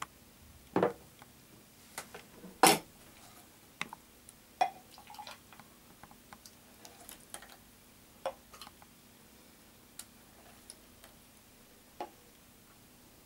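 Thick smoothie being ladled into glass tumblers: scattered taps and clinks of a ladle against glass and watermelon rind, with pouring and dripping liquid. The two loudest knocks come about one and three seconds in.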